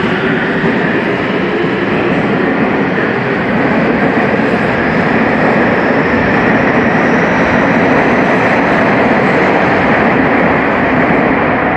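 Tobu 50000 series electric train accelerating out of a subway platform: a loud, steady rumble of wheels and running gear as the cars pass, growing a little louder partway through, with a faint whine rising in pitch above it.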